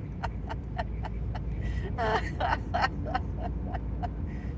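A woman's hiccups in a rapid run, about three short sharp ones a second, with one longer, louder voiced hiccup about two seconds in. Steady car road noise runs underneath.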